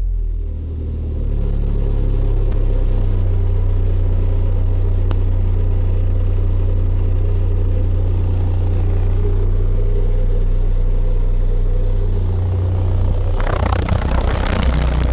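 A pair of Digital Designs 712D4 Redline 12-inch subwoofers in a ported box playing a loud, steady low sine test tone from a signal generator, its pitch turned down from about 43 Hz to about 30 Hz. Near the end a loud rattling buzz joins in.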